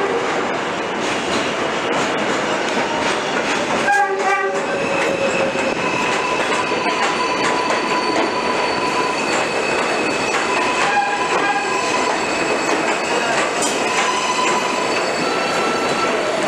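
New York City subway train running through the elevated station with steady rail noise and wheel clatter. About four seconds in there is a brief horn blast, followed by long, high, steady wheel squeal over the next ten seconds.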